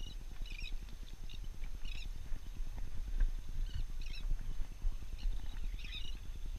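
Wind buffeting the microphone in a steady low rumble, with short high chirping calls of seabirds coming in small clusters throughout.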